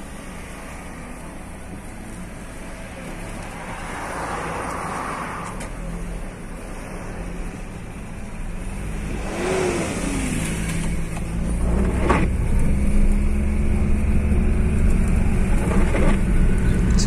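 Car engine and road noise heard from inside the cabin as the car pulls out onto the road and picks up speed, growing steadily louder. Another vehicle passes partway through, and there are two short knocks in the second half.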